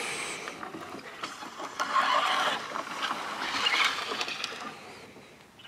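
Half-gutter tray being slid back into a fence-post-cover tube under a camper, a scraping rub that swells twice and then fades.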